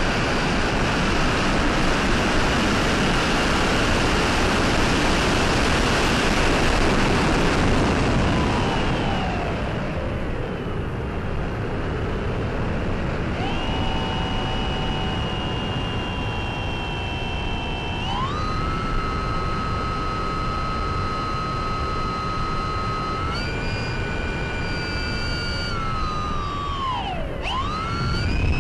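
Sunnysky 1240kv brushless motor and 8x6 propeller of a Mini Talon FPV plane in flight. It starts as a rushing noise that falls in pitch about nine seconds in as the throttle is cut. Then comes a steady whine that jumps to a new pitch several times with throttle changes, and swoops sharply down and back up near the end.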